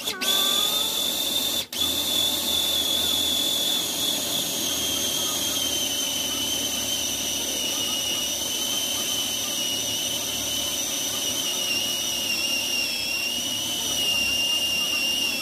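Electric food processor motor running steadily while it blends cooked potato, a high whine whose pitch sinks slowly as it works.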